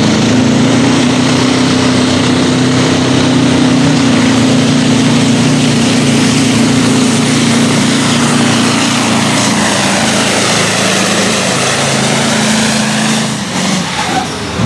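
Iveco pulling truck's V8 diesel engine held at full throttle, a loud steady drone at high revs as it drags the weight sled. About a second before the end the revs drop away as the truck reaches a full pull.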